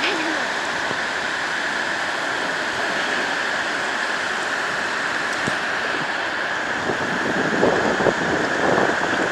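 Steady wash of sea surf with wind blowing across the microphone.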